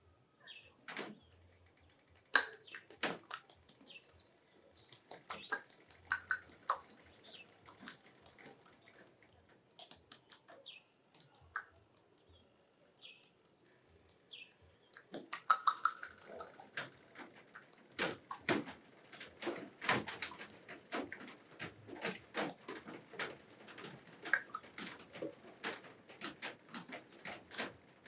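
Wet mouth smacking and squelching clicks made with a little water held in the mouth and a small water bottle, a homemade sound effect imitating lovemaking. Sparse clicks and a few short squeaky glides at first, growing much denser and louder about fifteen seconds in.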